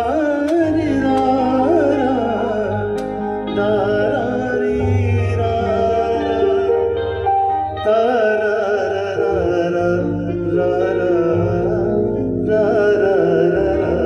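Live band of electric guitar, bass guitar, keyboard and drums playing a Hindi film song, with a winding lead melody line over a steady bass.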